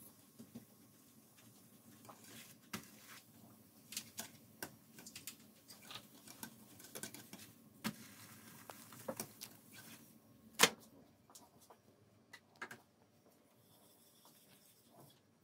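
Metal spatula scraping and tapping in a nonstick frying pan as a thin pancake is lifted and turned out, a run of small clicks and scrapes, with one much louder sharp knock about ten seconds in.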